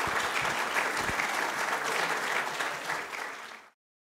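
Audience applauding, a dense, steady clatter of many hands clapping that fades and then cuts off abruptly to silence near the end.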